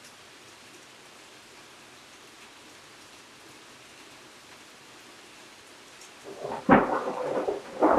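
Steady rain hiss, then about six seconds in a close thunderclap: a sharp crack followed by a couple of seconds of rumbling.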